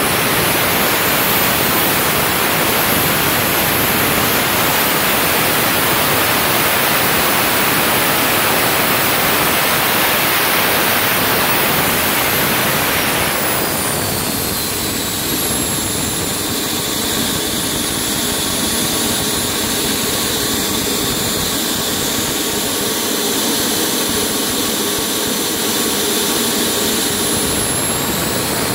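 AMT Pegasus 280 model turbojet engine running with a loud rush and a high whine. About halfway through it is throttled back: the rush drops and the whine falls in pitch, then the whine begins to rise again near the end.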